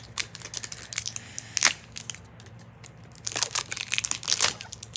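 A thin plastic wrapper crinkling and crackling as it is peeled off a pea-pod toy by hand, in irregular crackles. There is a loud crackle a bit over a second in and a dense run of crackles near the end.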